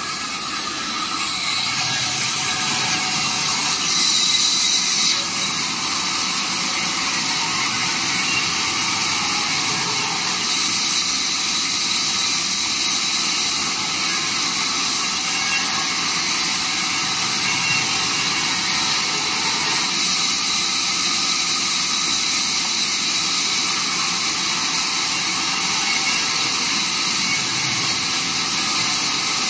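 Vertical band saw running and ripping a wooden slab lengthwise: a loud, steady hiss of the blade through the wood.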